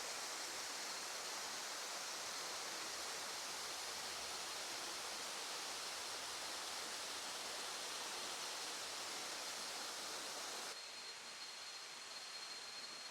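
Na Mueang Waterfall's water falling and rushing, a steady even hiss. About eleven seconds in it drops suddenly to a quieter, duller rush.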